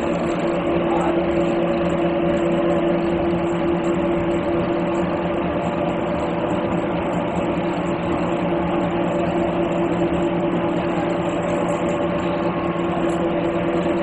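Screw oil expeller running: a steady mechanical hum with a few held tones that do not change.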